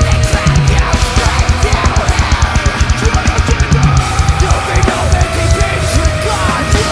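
Heavy metal band playing live, led by a drum kit hit hard and fast with cymbals ringing over a dense, loud band sound.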